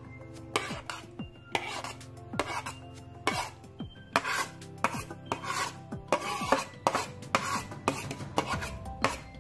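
Repeated rasping scrapes, roughly one to two a second, over quiet background music.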